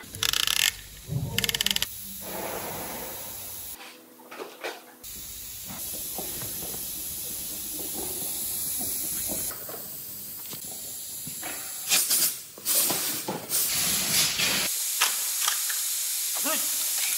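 Piston ring compressor being ratcheted tight around a truck diesel piston: a quick run of clicks about a second in. Then scattered metal handling knocks over a steady workshop hiss, and the background changes abruptly several times.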